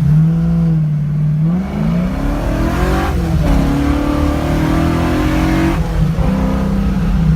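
The 1968 Ford Mustang's engine pulls under acceleration, its pitch rising, dropping sharply about three seconds in as with a gear change, then rising again before easing off near the end.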